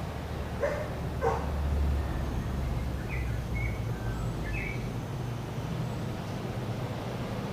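Two short dog barks about a second in, then a few brief bird chirps, over a steady low hum.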